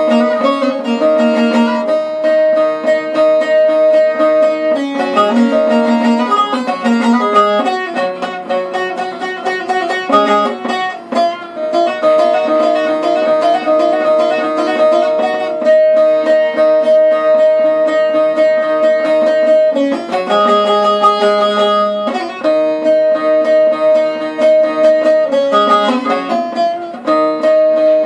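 Bağlama (Turkish long-necked saz) played solo in a fast, continuous strum: a melody moving over steady held drone notes, the instrumental introduction before the singing begins.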